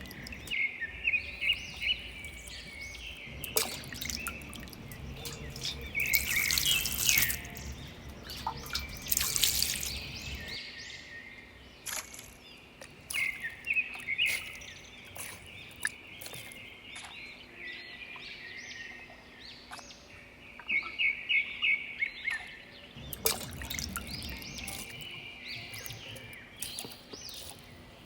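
Small birds chirping in repeated quick trills, with scattered clicks and drips of water and a low rumble during the first ten seconds and again near the end.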